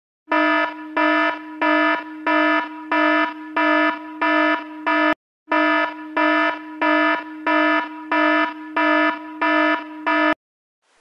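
Electronic alarm sound effect: a single-pitched warning beep repeating about twice a second, with a short break about five seconds in.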